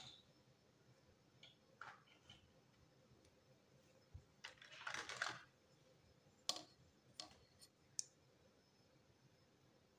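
Faint handling sounds: a few scattered light clicks and one short rustle as a paintbrush, a small paint bottle and a crocheted toy are picked up and moved about.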